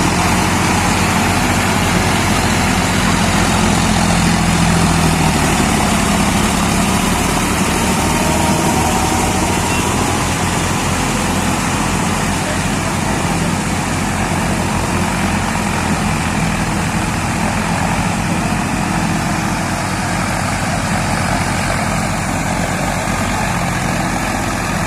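Farm tractor diesel engines running steadily, somewhat louder for the first several seconds before settling slightly.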